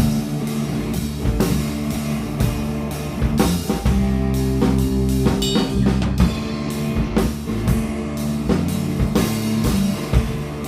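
Instrumental rock jam with a drum kit keeping a steady, busy beat under sustained bass notes and guitar, heard as a rough live mix without vocals.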